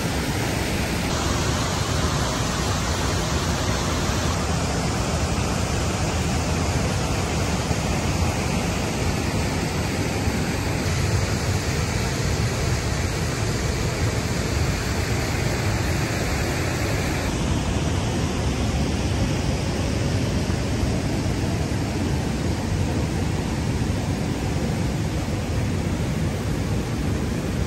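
Waterfall rushing: a steady wash of falling water with no breaks, its brightness shifting slightly a few times.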